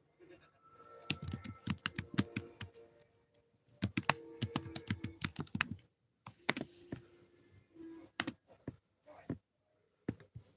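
Typing on a computer keyboard: quick runs of keystroke clicks with short pauses between them, thinning out near the end.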